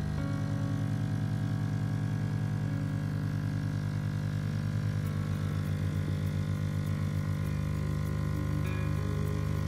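Capsule coffee machine's pump running steadily with a rhythmic pulsing hum as it dispenses a milky stream into a glass mug.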